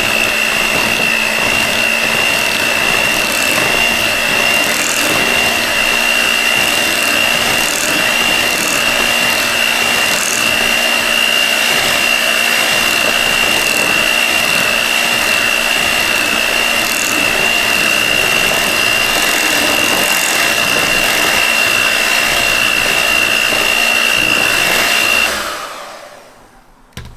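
Electric hand mixer running steadily with a constant high whine as it beats chocolate cheesecake filling. It switches off and winds down near the end.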